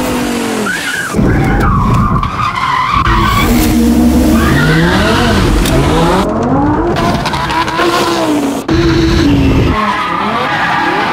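Lamborghini Huracán's V10 engine revving up and down hard as the car drifts, with tires sliding and squealing on the pavement. The engine pitch climbs and drops again and again, with sudden jumps in loudness about a second in and again near nine seconds.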